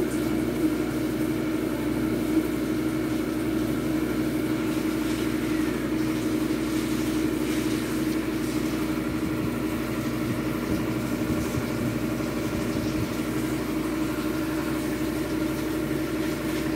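A steady mechanical hum: one low tone with fainter tones above it, unchanging throughout.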